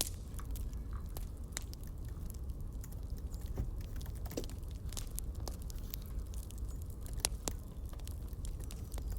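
Campfire crackling: scattered sharp pops and snaps over a steady low rumble of the flames.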